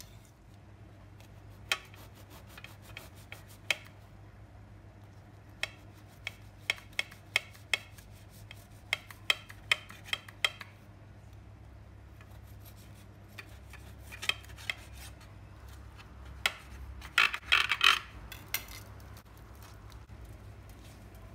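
A knife sawing through the crisp baked crust of a Turkish pide flatbread: a series of short, sharp crackles and rasps in irregular clusters, with the loudest, densest burst of crunching near the end.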